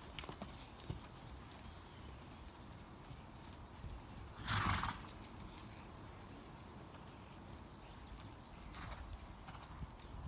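Faint, irregular hoofbeats of a horse trotting on a sand arena surface. About halfway through comes one short, loud horse call, noisy rather than a clear whinny.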